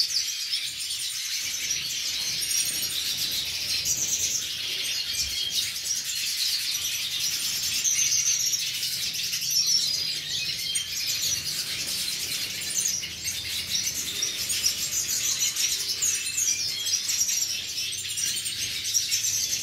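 A flock of captive siskins chirping and twittering together, a constant overlapping chatter of high chirps and trills with no pauses.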